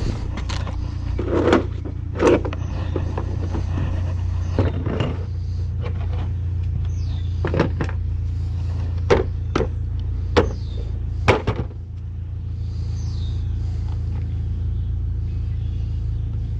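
Metal hand tools clinking and knocking, about ten sharp, irregular clicks, over a steady low rumble.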